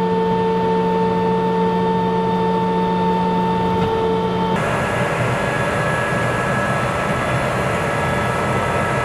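Tank engine running steadily with a few held whining tones over a low rumble. About halfway through it changes abruptly to a rougher, noisier engine sound with a fainter high whine.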